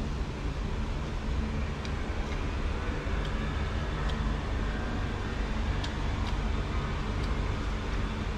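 Steady low rumble of distant road traffic, with a few faint soft clicks from eating by hand scattered through it.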